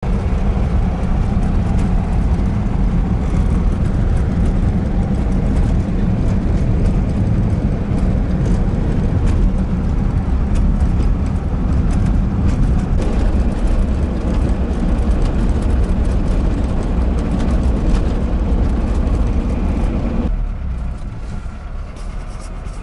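UAZ-452 'Bukhanka' van driving off-road through mud: a steady low engine and drivetrain rumble with many small knocks and rattles from the body. It goes quieter and duller for the last couple of seconds.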